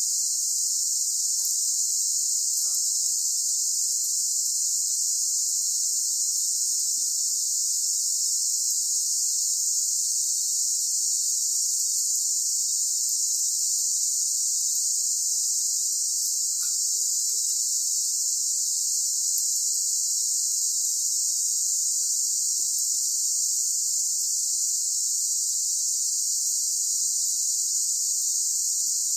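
Steady, high-pitched chorus of insects, an unbroken shrill drone that holds the same level throughout.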